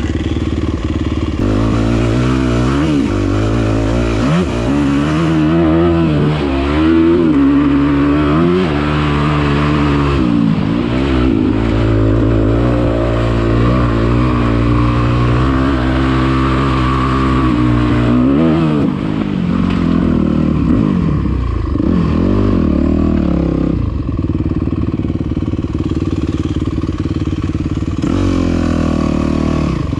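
Dirt bike engine running under load as the bike is ridden, its pitch repeatedly climbing and dropping back with the throttle.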